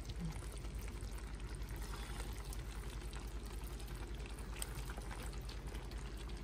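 Pork belly humba simmering in a pot, its sauce cooked down to a little thick liquid, bubbling steadily, with a few faint scrapes and ticks of a spatula stirring the meat.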